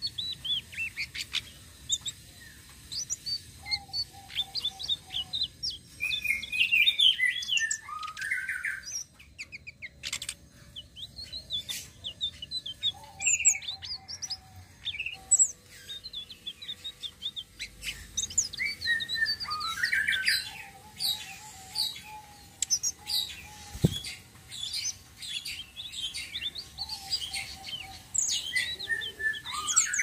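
Caged blue flycatcher (tledekan) singing a rolling, varied song of quick chirps, trills and sweeping whistles in bouts, with short pauses between phrases.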